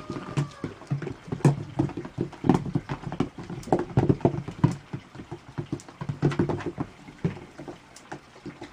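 Small hooves of baby goats tapping and stamping on a wooden board, a quick irregular clatter of taps and hollow knocks that thins out near the end.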